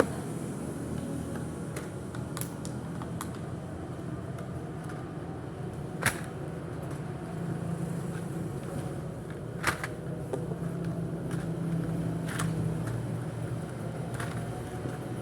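Scattered sharp clicks from handling a selfie stick and its packaging, about six spaced a second or more apart, the loudest about six and ten seconds in, over a steady low hum.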